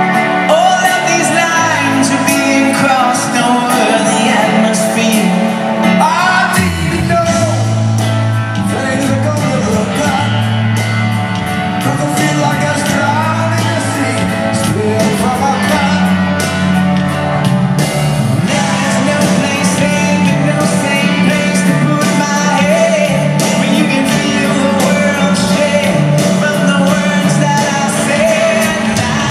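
Live rock band playing a song, with lead vocals over electric guitars, keyboards, drums and bass. The bass line comes in stronger about six seconds in.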